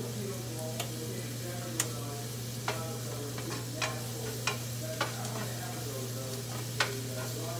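Garlic sizzling in butter in a nonstick frying pan as it is stirred to a light brown. A utensil clicks against the pan about seven times at uneven intervals, over a steady low hum.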